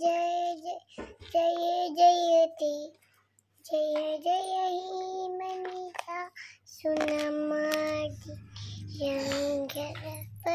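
A young girl singing a tune in long held notes, in short phrases with brief pauses between them.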